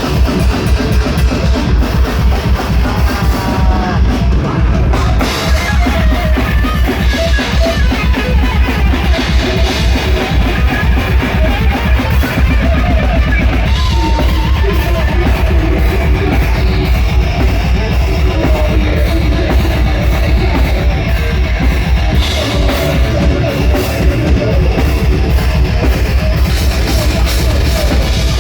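A heavy metal band playing loud and live: distorted electric guitars over a drum kit with a pounding bass drum, with a wavering melodic guitar line above.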